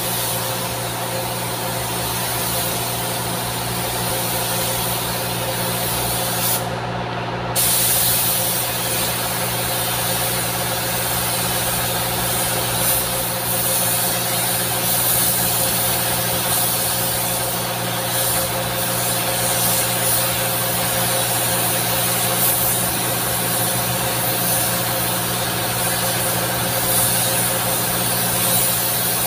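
Gravity-feed air spray gun hissing steadily while spraying base coat onto a car bumper, with the spray cutting out for about a second near seven seconds in. A steady low machine hum runs underneath.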